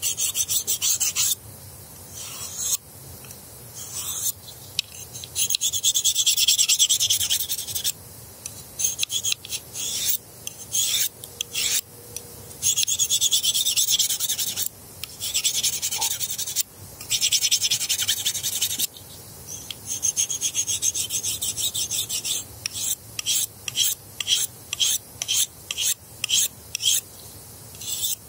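An Opinel knife's dulled steel blade stroked along a Lansky ceramic pocket hone to bring back its edge, making a dry, hissing scrape with each pass. The strokes are long, a second or two each, for most of the time, then turn short and quick, about two a second, near the end.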